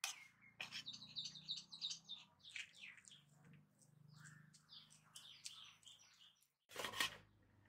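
Small birds chirping: a fast run of repeated high chirps in the first two seconds, then scattered calls, over a faint low hum. Near the end the sound drops out briefly and a short, loud noisy burst follows.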